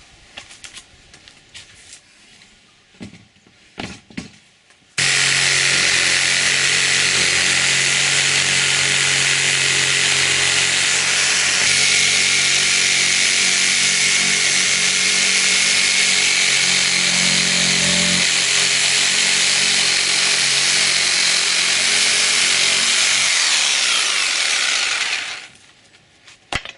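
An electric power saw starts abruptly and runs steadily for about twenty seconds, cutting particle board, then winds down and stops near the end. It is preceded by a few light handling knocks.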